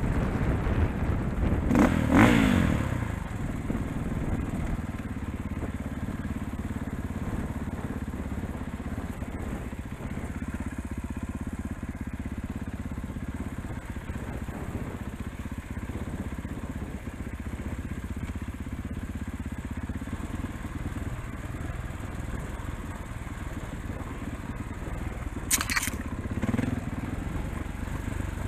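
KTM 500 dirt bike engine running at a fairly steady low throttle along the trail, with a quick rev about two seconds in. A short, sharp hit cuts through near the end.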